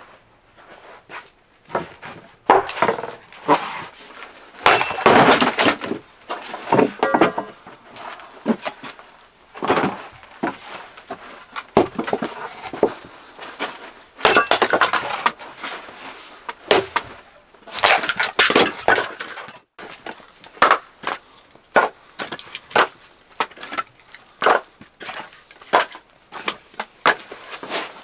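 Firewood logs knocking and clattering against each other in irregular bursts of sharp wooden knocks.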